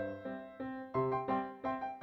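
Background music: a melody of struck notes, each starting sharply and dying away, about three a second.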